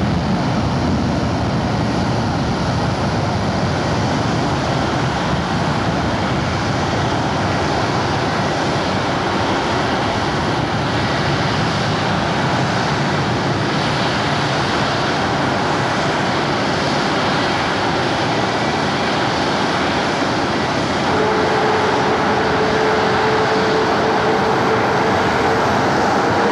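Boeing 727-200's three Pratt & Whitney JT8D turbofan engines at takeoff power as the jet lifts off and climbs away: a steady, loud rushing jet noise. A steady whining tone joins it about 21 seconds in.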